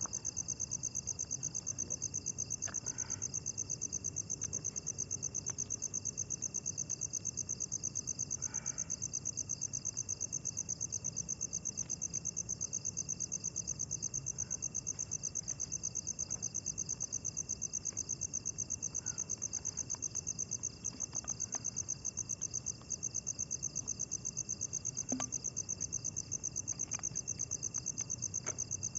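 Night insects, crickets, trilling in a fast, even pulse that never lets up, with a second steady high insect tone beneath it.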